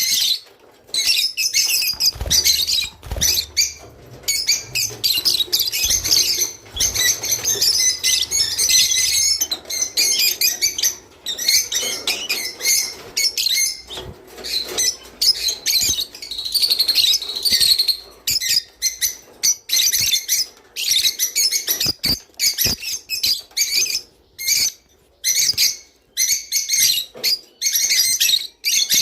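Java sparrows chirping and singing in quick, dense runs of high, bell-like notes and trills, broken by short pauses.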